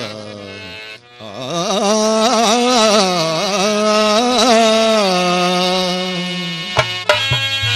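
Male devotional singer holding a long vowel in Carnatic style, the pitch wavering in quick ornamental turns and then settling, after a quieter steady drone at the start. Tabla strokes come in near the end.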